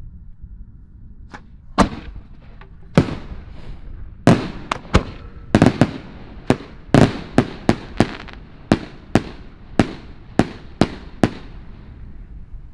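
Aerial fireworks bursting: a quick, irregular string of about twenty sharp bangs that starts about a second and a half in and stops about a second before the end, each bang trailing off briefly.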